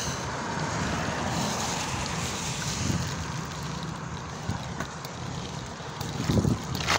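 Wind buffeting the microphone of a bike-mounted camera, with BMX tyres hissing over wet tarmac. A sharp knock comes near the end.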